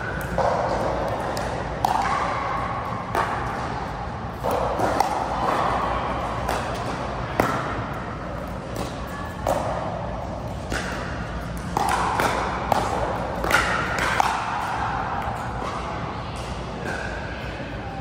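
Pickleball paddles striking a hard plastic pickleball and the ball bouncing on the court: a string of sharp pops at irregular intervals, echoing in a large hall.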